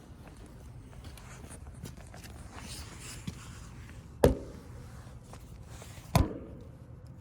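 Faint handling and shuffling noise broken by two sharp knocks about two seconds apart, each ringing briefly.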